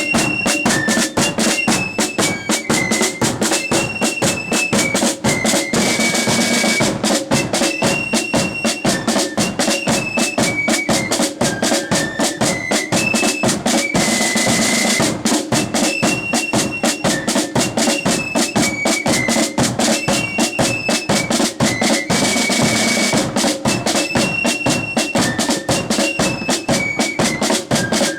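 Blood-and-thunder flute band playing a march: a high flute melody over rapid snare drum rolls and a pounding bass drum.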